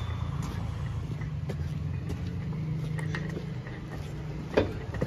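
Low steady rumble of road traffic, with one sharp click about four and a half seconds in.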